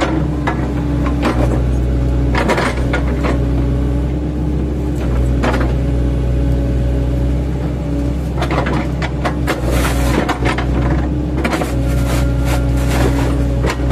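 8-ton-class mini excavator's diesel engine running steadily under load, with repeated sharp knocks and cracks as its bucket, fitted with welded-on chipping blade tips, chops oil palm trunks. The knocks come in clusters every few seconds.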